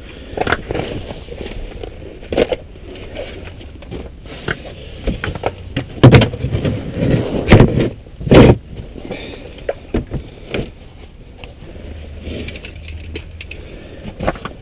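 Irregular knocks, thumps and scrapes of gear being handled on the ice, with three heavy thumps in the middle.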